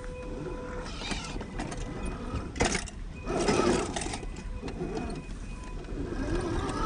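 RC rock crawler's 550 21-turn brushed electric motor and gear drivetrain whining as it crawls over rock, with a sharp knock about two and a half seconds in and a louder stretch of rough scraping and crunching just after.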